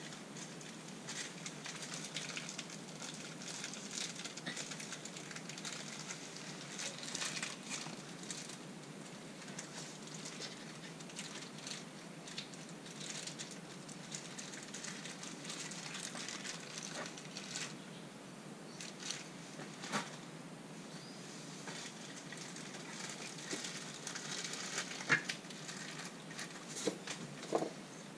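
Small metal parts and tools being handled while trim-ram hardware goes onto a MerCruiser stern drive: faint rustling with scattered light clicks, and a few sharper clicks near the end.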